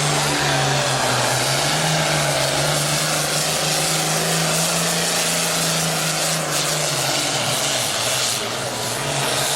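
Super Farm class pulling tractor's turbocharged diesel engine running hard at high revs, as on a pull down the track. It drones steadily with a pitch that wavers slightly and sags a little near the end.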